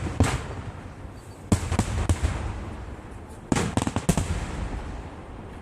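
Fireworks shells bursting in three quick volleys of two or three sharp bangs each, about a second and a half apart, each bang trailing off in a low rolling echo.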